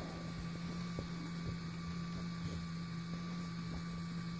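Small Lego electric motor running steadily, giving a constant low hum, with a few faint ticks from the moving mechanism.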